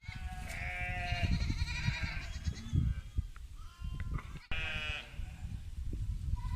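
Sheep bleating: several overlapping calls in the first two seconds and another about five seconds in, over a steady low rumble.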